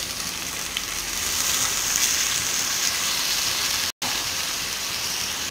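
Crab masala in hot oil in a kadai sizzling and hissing as water is poured in, the sizzle swelling a little about a second in. The sound cuts out for an instant near four seconds.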